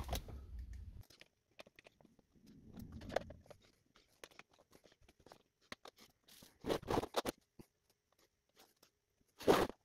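Scattered light clicks, taps and rustles of 3D-printed plastic parts and a vinyl floor-tile platform being handled and fitted onto a small rocker base on a table. A louder clatter comes about seven seconds in and again near the end, after a low rumble that fades in the first second.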